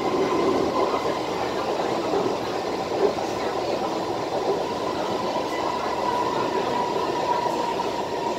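Interior running noise of a Kawasaki Heavy Industries C151 metro train in motion: a steady rumble with a steady whine over it. There is a single brief knock about three seconds in.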